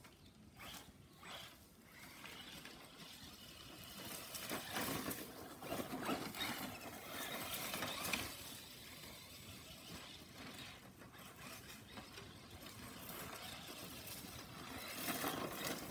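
Traxxas radio-controlled car driving across grass and dirt, its motor and tyres growing louder and fading, loudest from about 4 to 8 seconds in and again near the end.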